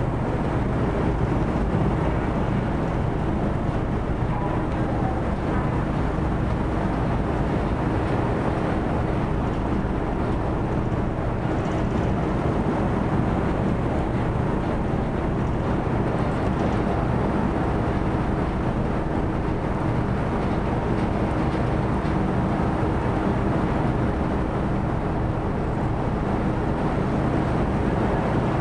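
Car ferry's engines running steadily as the ship heads out of harbour: a constant low hum under an even rush of noise, with no change in level.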